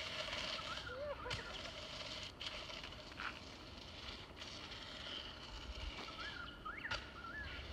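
Faint outdoor ambience: a steady hiss with a few short, distant chirping calls, about a second in and again near the end.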